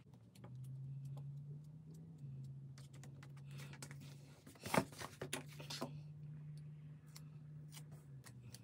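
Stickers being peeled off a sticker sheet and pressed onto planner pages, with fingernails tapping on the paper: scattered light clicks and paper rustles, the sharpest tap about five seconds in. A low steady hum lies underneath.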